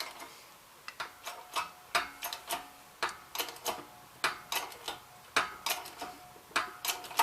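Steel tools and fork parts being handled: a string of light, irregular metallic clinks and knocks, two or three a second, several of them ringing briefly.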